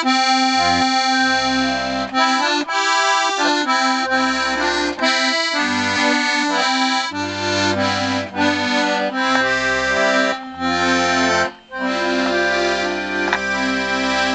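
Hohner Carmen 24-bass piano accordion being played: a tune on the treble keys over left-hand bass notes and chords, with a brief pause about two thirds of the way through.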